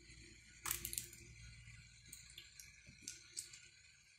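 Faint plastic crackles and a few small clicks from a sauce sachet being squeezed over bread, the loudest about two-thirds of a second in.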